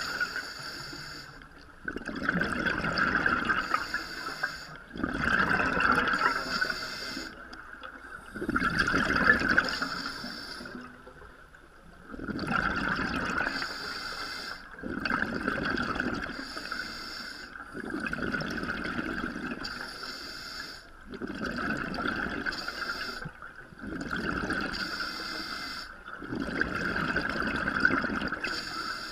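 Scuba regulator breathing underwater: a repeating cycle of hissing inhalation and bubbling exhalation, about one breath every three seconds.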